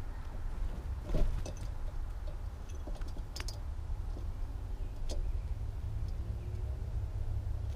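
Steady low outdoor rumble with a few sharp clicks and taps, the loudest about a second in.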